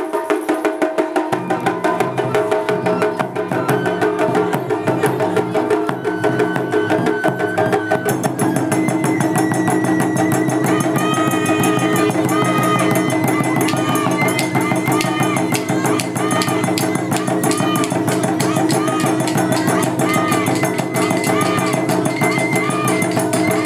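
Taiko drum ensemble playing a fast, driving rhythm of dense, evenly spaced strokes with sharp wooden clicks. About eight seconds in, a transverse bamboo flute (shinobue) enters with a melody of held notes and curling ornaments over the drumming.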